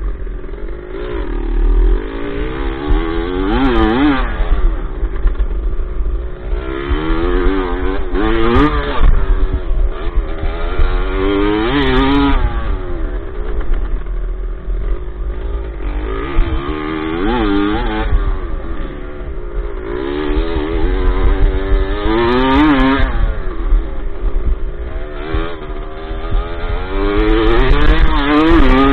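Dirt bike engine heard from on board while racing, repeatedly revving up and dropping back, its pitch climbing to a peak about every four to five seconds.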